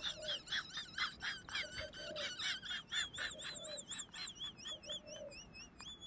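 Small birds chirping rapidly, several high chirps a second, joined from about halfway by a wavering whistled trill. Under them come soft, low coos in short groups, typical of a spotted dove.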